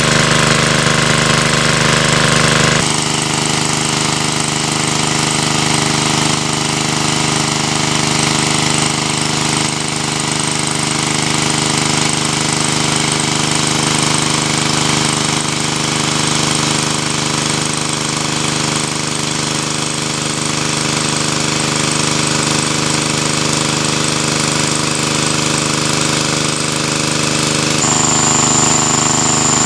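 Small air-cooled petrol engine driving a portable water pump, running steadily under load, with water gushing from the outlet hose. Its tone shifts a little about three seconds in and again near the end.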